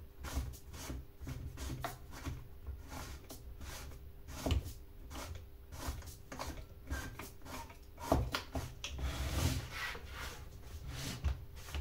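Metal saw chain and guide bar of a new chainsaw being handled and fitted together by hand: irregular small clicks, rattles and rubbing scrapes, with a few louder knocks.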